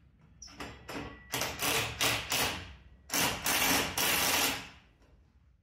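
A wood-framed greenhouse wall panel being worked into its opening: several short scrapes and knocks of wood against the frame, then one longer scrape about three seconds in.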